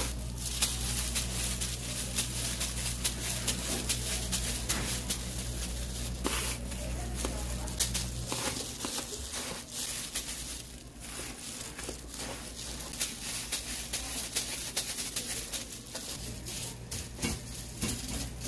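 Disposable plastic gloves crinkling and panko breadcrumbs rustling as rice balls are rolled and patted in a metal tray of crumbs, in irregular small rustles and clicks. A steady low hum underneath drops out about eight seconds in and comes back near the end.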